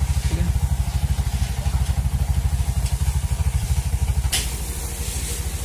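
Bajaj BS6 auto rickshaw's single-cylinder four-stroke engine idling with a steady, fast low pulse. There is one sharp click about four seconds in.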